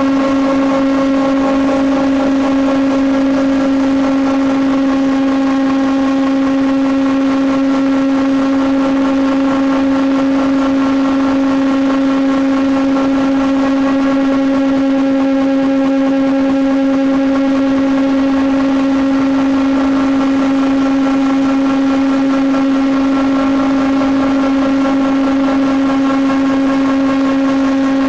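Four-sided timber moulder running, its cutter heads spinning with a steady, unchanging hum.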